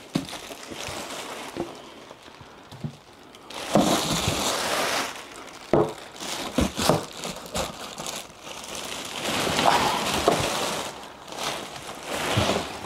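Clear plastic packaging crinkling and rustling as hands rummage through it in a cardboard box, with a few light knocks from parts being moved.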